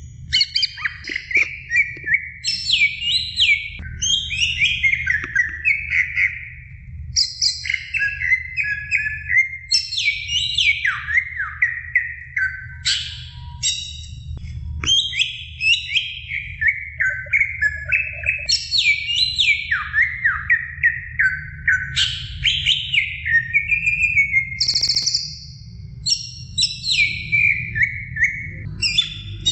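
Greater green leafbird (cucak ijo) singing nonstop in long, rapid phrases of sweeping whistled and chattering notes, with only brief pauses, over a faint low hum.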